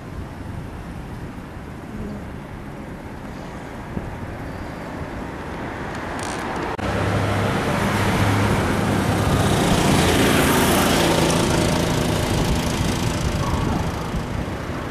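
Road traffic noise from a busy avenue. About halfway through, after a sudden cut, a louder vehicle with a low engine hum draws near and passes, swelling and then fading toward the end.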